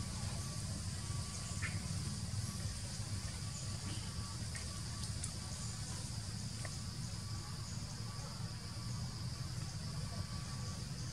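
Steady outdoor ambience: a constant low rumble under a steady high insect hum, with a few faint clicks.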